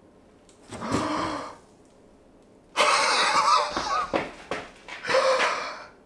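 A man gasping and exclaiming breathily in amazement, without words: a short burst about a second in, then longer, louder ones around three and five seconds in.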